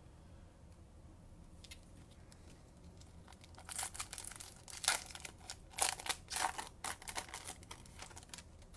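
Baseball card pack wrapper crinkling and cards rustling in the hands as the next pack is opened: a run of short crackles beginning about three and a half seconds in and lasting about four seconds.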